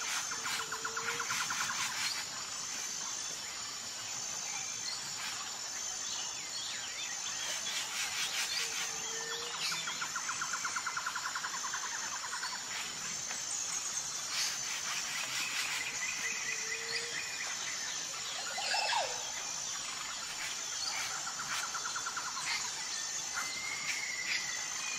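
Outdoor ambience: an insect chirping in a steady pulsing rhythm, with birds calling and trilling now and then.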